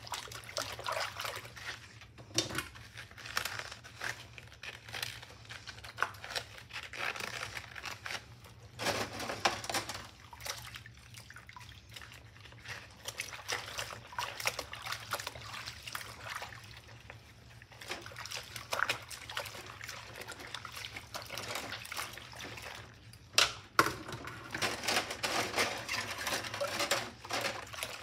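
Rubber-gloved hands scrubbing kitchen utensils with a cloth in a soapy stainless steel sink: irregular swishing and sloshing of water and suds with small clinks of metal. A single sharp knock stands out about three-quarters of the way through.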